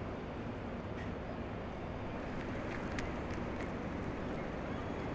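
Steady low rumble and hiss of harbour waterside ambience, with a few faint clicks a little past the middle.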